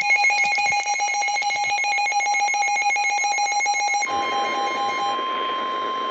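Emergency Alert System alert tones: a rapid, trilling electronic alert until about four seconds in, then a steady single-pitched tone over hiss, the 1050 Hz NOAA Weather Radio warning alarm that precedes a severe thunderstorm warning.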